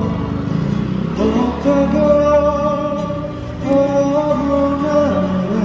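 Male voice singing a slow Korean ballad into a microphone, holding long notes, with acoustic guitar accompaniment.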